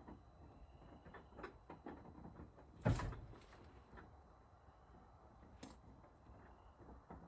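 A door shutting with a single heavy thud about three seconds in, amid faint clicks and handling knocks.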